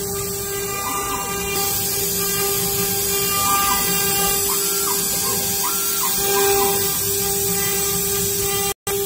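FW-1325 CNC router's spindle whining at a steady pitch as its bit engraves letters into a wooden board. Short whines from the axis motors step up and back down in pitch every second or two as the head moves between strokes. All sound cuts out for an instant near the end.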